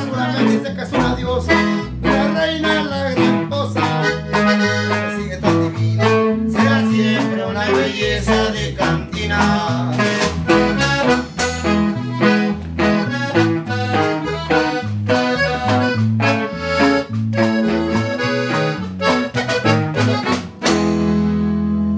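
Live norteño conjunto music: a button accordion playing the melody over a strummed bajo sexto, a walking bass line and snare drum. Near the end the band stops and holds a final accordion chord.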